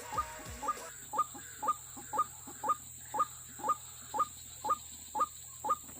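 White-breasted waterhen (ruak-ruak) calling in a monotonous series of short upward-sweeping notes, about two a second.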